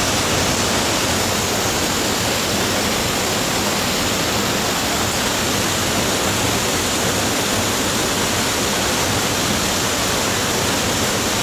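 Steady, even rush of water from a waterfall.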